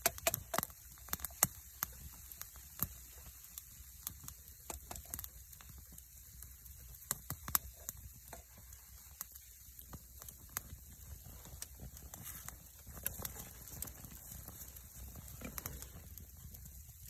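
Wood fire crackling in a small titanium firebox stove: irregular sharp pops and snaps, thickest near the start and scattered after.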